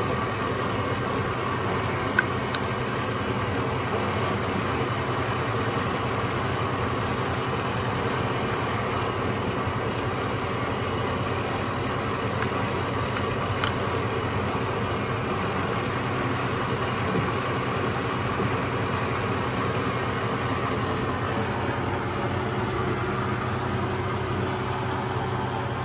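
Kearney & Trecker Model 2K horizontal milling machine running steadily with its gearbox in low speed, a constant geared machine hum. Two faint clicks come about two seconds in and about halfway through.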